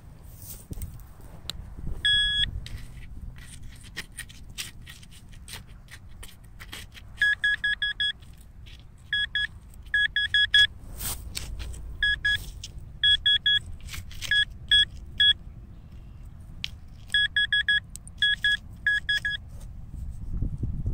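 Handheld metal-detecting pinpointer beeping as it is pushed through loose dug soil: one longer beep about two seconds in, then repeated rapid trains of short beeps at a single pitch, about five a second, as it closes in on a metal target. Soil crunching and clicking under the hand, over low wind rumble on the microphone.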